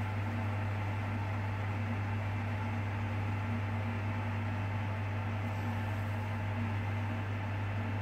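Hoover Dynamic Next washing machine humming steadily with its drum at rest: the drain pump emptying the water after the cool-down, before the intermediate spins.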